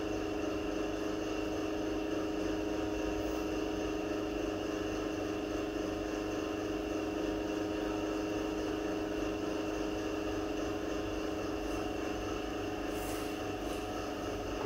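A steady droning hum that holds the same pitch throughout, with a few faint soft hisses near the end.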